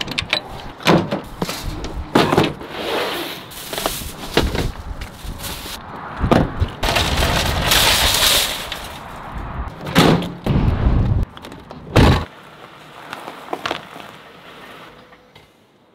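Clunks and bangs of a Ford F-150 pickup's tailgate being opened and gear being loaded, and a shopping cart rattling over asphalt. Several sharp knocks, a long stretch of rattling in the middle, and the sounds die down over the last few seconds.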